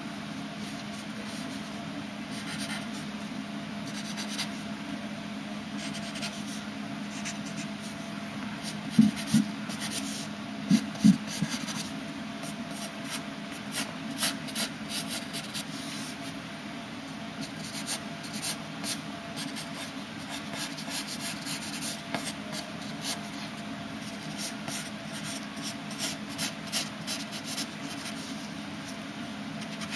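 Graphite pencil scratching across paper in many short, irregular strokes while sketching, over a steady low hum. A few louder low bumps come around nine and eleven seconds in.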